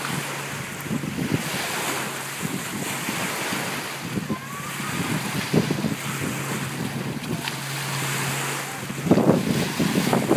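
Small lake waves lapping and splashing in the shallows against the shore and a wooden dock, with wind buffeting the microphone. A steady low drone runs underneath for most of the time, and the splashing grows louder near the end.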